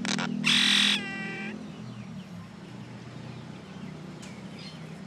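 Common myna calling: a loud harsh squawk about half a second in runs into a short clear ringing note, followed by fainter chattering calls near the end.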